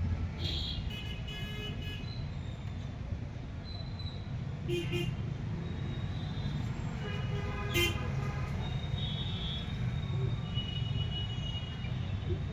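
Street traffic running steadily, with vehicle horns honking several times; the strongest honk comes a little past the middle.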